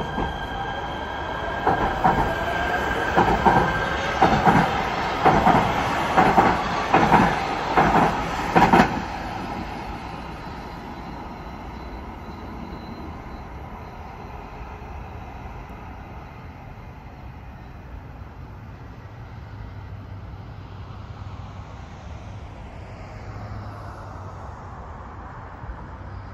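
Los Angeles Metro P3010 light rail train pulling out of the station. A high steady whine fades after a few seconds, under a run of rhythmic clacks as the wheels cross the rail joints. The clacks stop about nine seconds in, leaving a quieter steady hum of street traffic.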